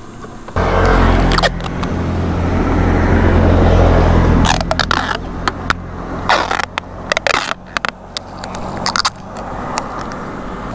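A vehicle passes close by with a loud low rumble that swells and fades over about four seconds. Then come several short ripping and crinkling sounds as adhesive tape is pulled off the roll and pressed over bubble wrap.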